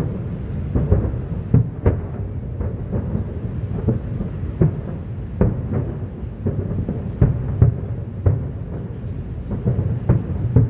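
Aerial firework shells bursting across the harbour in quick succession, sharp bangs roughly one or two a second over a constant low rumble of overlapping booms.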